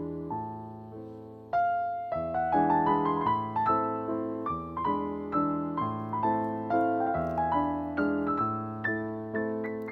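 Background piano music: a gentle melody of struck notes, each dying away, swelling louder about a second and a half in.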